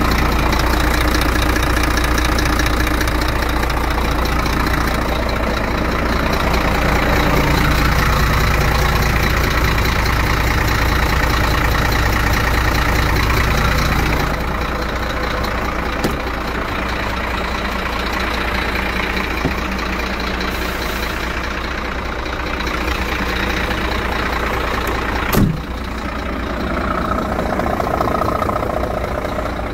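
Scania P380 tractor unit's diesel engine idling steadily, louder for the first half and softer from about halfway. One sharp knock near the end.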